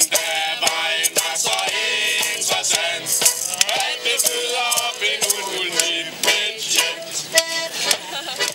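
Lively accordion music with a shaken rattle keeping a quick beat; it cuts off suddenly at the end.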